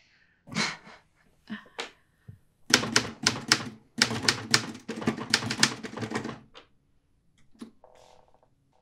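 Typewriter keys being struck: a few scattered strokes, then a fast unbroken run of typing lasting about four seconds, then a few faint clicks near the end.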